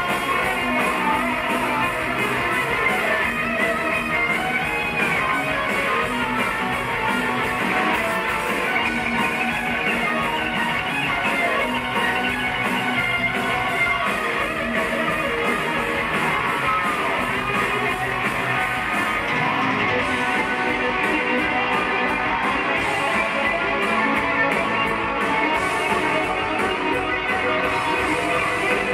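Heavy metal band playing live at concert volume: distorted electric guitars over drums and bass.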